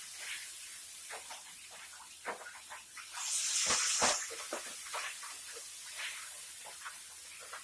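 Kitchen work at the stove: light clinks and knocks, with a faint steady hiss underneath and one louder hiss lasting about a second, about three seconds in.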